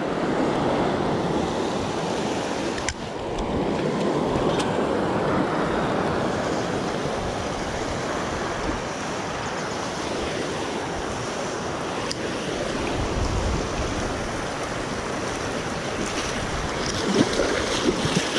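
Steady rush of fast-flowing Kaveri River water over rapids, with a few short rustles near the end.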